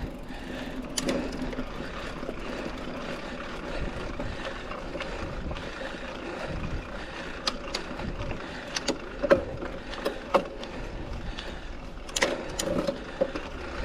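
Mountain bike ridden over a dirt trail: a steady rush of tyre and wind noise, with a faint hum, broken by sharp clacks and rattles from the bike jolting over bumps, several about two thirds of the way through and another cluster near the end.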